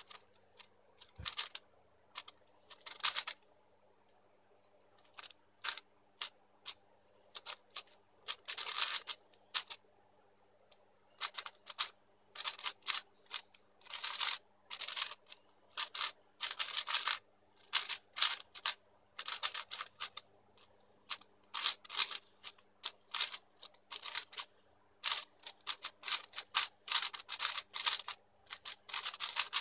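YuXin Blue 4x4 speed cube being turned fast during a solve: rapid plastic clacking of layer turns in bursts, with short pauses about four and ten seconds in.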